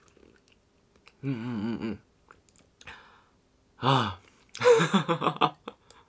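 A quiet sip of hot coffee, then a man's appreciative 'mmm' hum, a breath out, a sighed 'ahh' about four seconds in, and a short laugh near the end.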